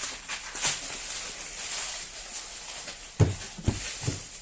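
Beehive (honeycomb) wrapping paper rustling and crinkling as it is wound around a stack of plates, then three dull knocks near the end.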